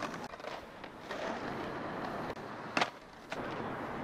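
Skateboard wheels rolling on asphalt. A single sharp clack of the board comes near three seconds in, followed by a lighter knock about half a second later.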